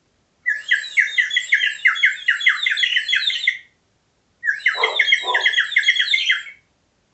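A person whistling while moving the tongue, which breaks the whistle into a rapid, bird-like warble. It comes in two runs, the first about three seconds long and the second about two.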